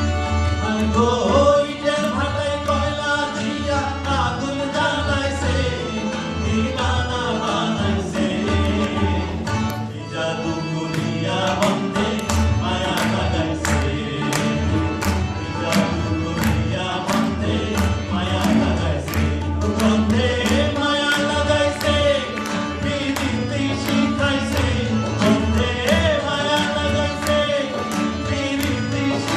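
A Bengali folk song performed live: a male voice sings over harmonium, tabla and acoustic guitar. Crisp tabla strokes come in strongly and busily after about ten seconds.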